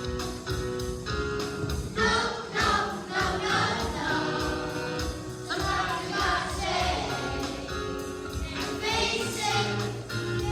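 Music: a song with voices singing over an accompaniment track with a steady beat.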